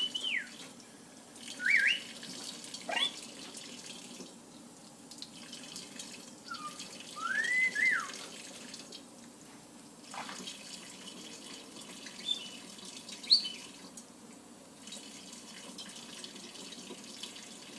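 Kitchen tap running steadily into a sink, with several brief whistled glides rising and falling in pitch over the top of it.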